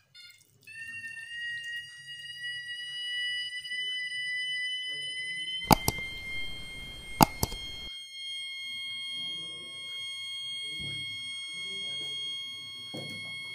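Rain alarm's buzzer sounding a continuous high-pitched tone that starts under a second in, its pitch creeping slightly upward. About six seconds in, a rush of noise with two sharp clicks lasts about two seconds.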